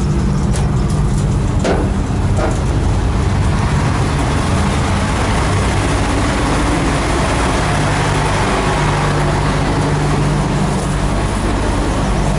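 Engine of a Moskva-type river pleasure boat running steadily under way: a low, even hum with a constant wash of noise over it, and a couple of light clicks about two seconds in.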